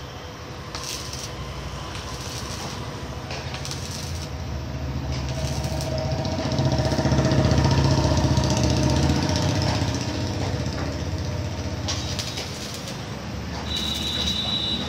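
Arc welding a steel gate grill frame: several short crackling bursts as the arc is struck for tack welds, the last near the end. Under them a steady low rumble grows louder in the middle and then eases off.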